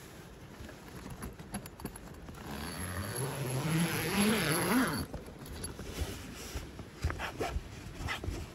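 Sleeping bag and tent fabric rustling as a person stirs awake, with a drawn-out sleepy groan about halfway through, then a tent zipper pulled open in several short rasps near the end.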